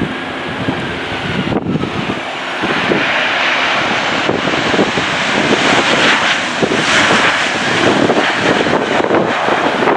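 Jet airliner's engines running as it comes in to land, growing louder through the second half. Strong wind buffets the microphone throughout.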